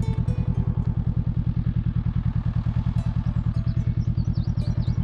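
Honda CB500X parallel-twin motorcycle engine idling, a steady, fast low throb. Faint bird chirps sound over it in the second half.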